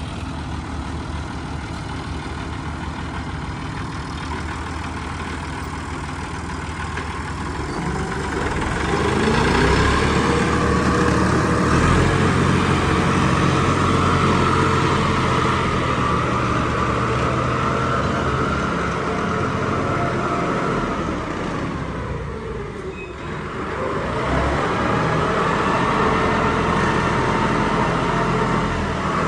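Heavy diesel engine running; about eight seconds in it revs up and holds at higher revs, drops back briefly about three-quarters of the way through, then picks up again.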